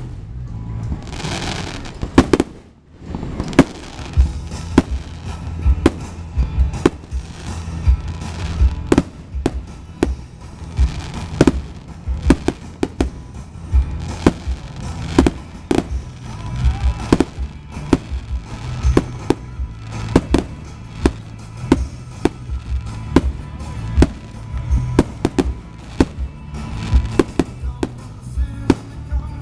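Aerial fireworks shells bursting in an uneven series of sharp bangs, often one to three a second.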